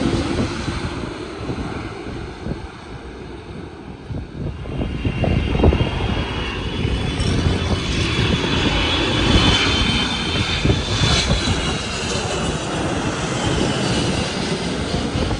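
Airliner descending to land low overhead: engine noise swells from about four seconds in, with a high whine that slowly falls in pitch as it passes. Gusty rumble of wind on the microphone underneath.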